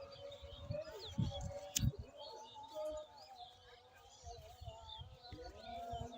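Small birds chirping and twittering in many short calls throughout, over faint held tones and low thumps on the microphone, with one sharp click about two seconds in.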